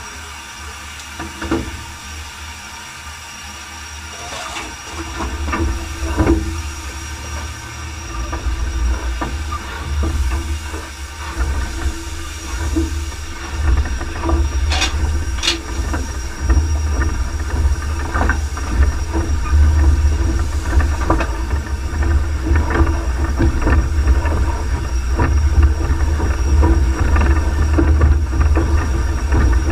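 Cab sounds of the Peckett & Sons steam locomotive Ashington No.5 working a train: a low rumble that builds from about eight seconds in and keeps getting louder, with steam hiss and scattered knocks and clanks.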